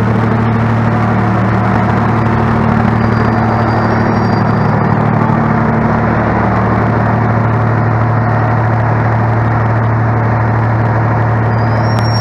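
Steady low drone of an idling diesel railcar engine, with a faint high thin whine briefly in the middle and again near the end.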